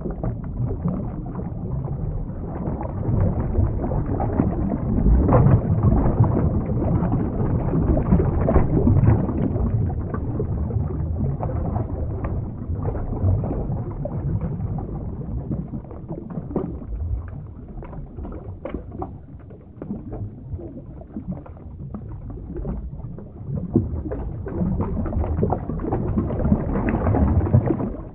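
Underwater ambience sound effect: a low, dense water noise with scattered bubbly pops, swelling and easing in waves.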